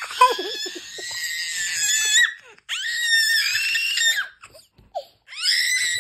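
A baby squealing with delight: three long, high-pitched squeals, the second beginning near the middle and the third near the end.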